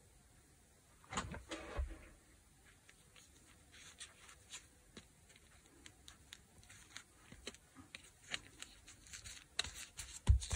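Soft handling noises of paper and fabric as an embellishment is glued onto a journal page with a hot glue gun: a few low knocks about a second in, then scattered light taps and rustles that grow busier toward the end.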